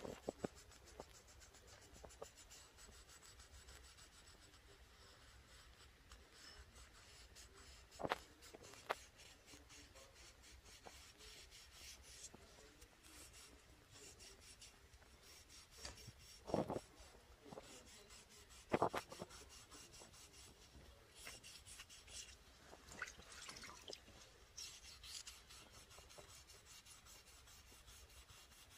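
Faint rubbing and light scraping of a hand working a small sanding pad over a painted fish figurine. A few short knocks stand out, about eight seconds in and twice more around sixteen and nineteen seconds in.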